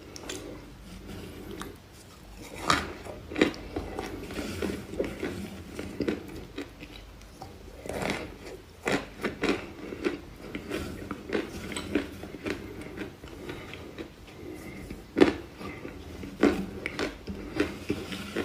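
Crunching and chewing of dry chunks of white clay, in irregular sharp crunches, with chunks rattling in the bowl as fingers pick through them.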